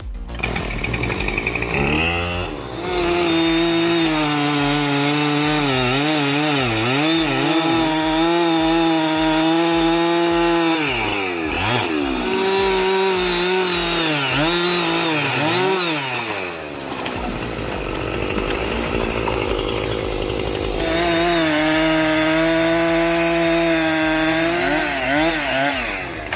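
Chainsaw running at full throttle while cutting, its high engine note repeatedly dipping and recovering as the chain loads in the wood. It eases off for a few seconds about two-thirds of the way through, then revs up and cuts again.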